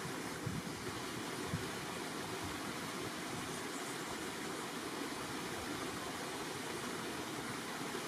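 A shallow rocky stream running steadily, an even rush of water, with a few soft low bumps in the first second or two.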